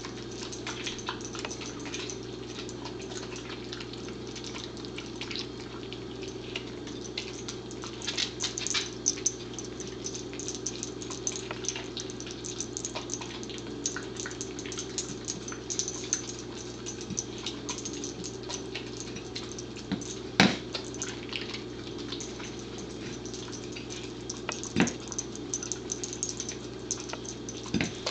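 Corgi eating wet food off a plate: a steady run of smacking, lapping and licking, with two sharper knocks about twenty and twenty-five seconds in, over a steady low hum.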